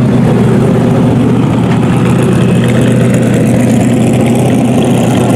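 Prototype race car engine idling loud and steady through its twin exhausts, close up.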